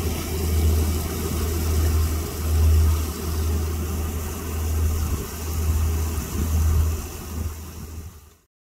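Low rumble of outdoor harbour ambience with a faint hiss, swelling and easing every second or two, cut off suddenly near the end.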